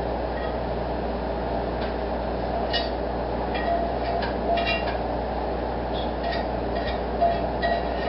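Metal cookware and utensils clinking lightly a handful of times over a steady mechanical hum and whir in a kitchen.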